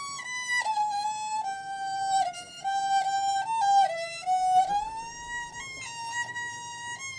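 Background music: a single melody line played in changing notes that at times slide from one pitch to the next.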